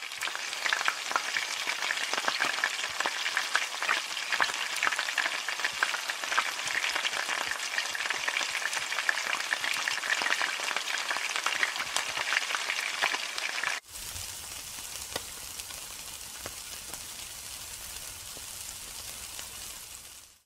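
Food frying in hot oil in a wok, a dense crackling sizzle. About fourteen seconds in it cuts abruptly to meat skewers sizzling on a grill, quieter, with a low hum underneath.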